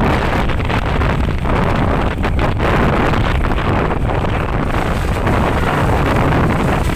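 Strong wind buffeting on the microphone over a steady low rumble of moving vehicles on the road.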